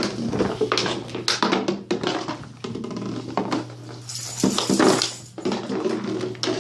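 Puppies playing together: short growls and yips mixed with scuffling, clicks and knocks, over a steady low hum.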